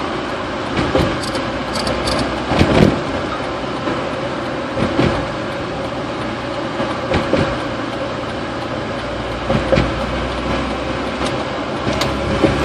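Road noise heard from inside a vehicle rolling slowly across a steel truss bridge: a steady tyre and engine rumble with a sharp thump every couple of seconds as the wheels go over the deck joints.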